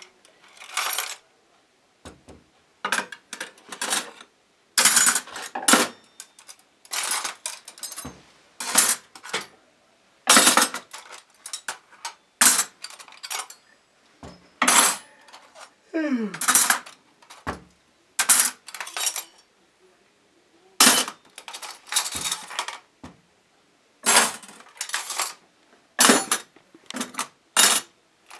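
Metal cutlery clinking and clattering as knives, forks and spoons are taken from the dishwasher's silverware basket and dropped into a drawer tray: irregular clusters of sharp, ringing metal clinks with short pauses between, and a brief falling squeal about halfway through.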